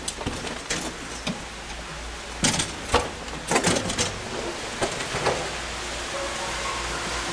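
A door being pushed open and handled: a run of sharp clicks and knocks, loudest around the middle, giving way to a steady hiss of background noise near the end.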